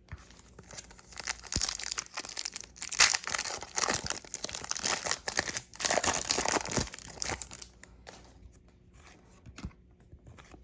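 Trading card pack wrapper being torn open and crinkled by hand, a dense crackle for several seconds that trails off into a few light rustles.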